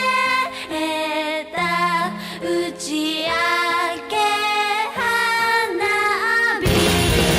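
Music with a high female voice singing long, wavering held notes over a low sustained tone. About six and a half seconds in it cuts abruptly to loud, dense rock music.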